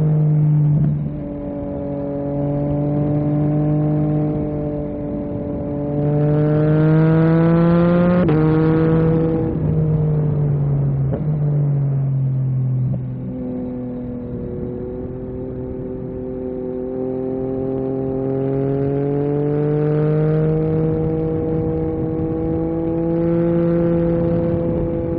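Yamaha MT-09 SP's three-cylinder engine through an Akrapovic carbon exhaust, pulling hard under way: its pitch climbs for about eight seconds, drops back for a few seconds as the throttle eases, then climbs slowly again.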